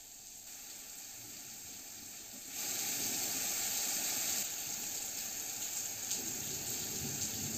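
Heavy rain falling, a steady hiss that grows louder about two and a half seconds in.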